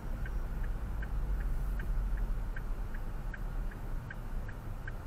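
Car turn-signal indicator ticking at an even pace, between two and three ticks a second, over the low steady rumble of engine and tyres on a wet road inside the car.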